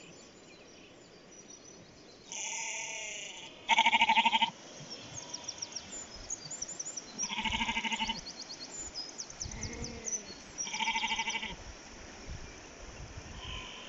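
Sheep bleating four times, a few seconds apart, the second call the loudest.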